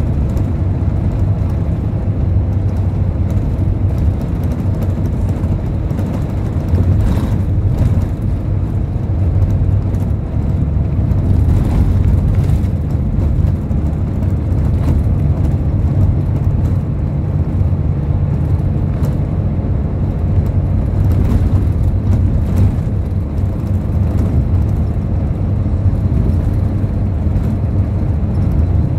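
Steady low rumble of a moving road vehicle heard from inside its cabin: engine drone and road noise running evenly at cruising speed.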